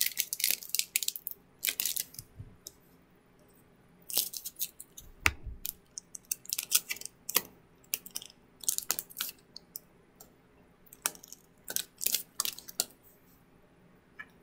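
Pokémon trading-card booster pack being opened by hand: the foil wrapper crinkles and tears in short irregular bursts, with sharp clicks and rustles as the cards are handled, and a soft thump about five seconds in.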